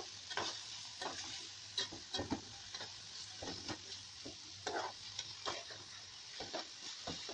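Marinated chicken pieces sizzling in oil in a large metal pan over high heat, with a steady hiss. A spatula scrapes and knocks against the pan in short, irregular strokes as the pieces are turned.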